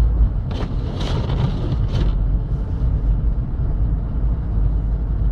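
Car driving through a blizzard, heard from inside the cabin: a steady low rumble of engine and tyres on snowy road, with a few brief rushing noises in the first two seconds.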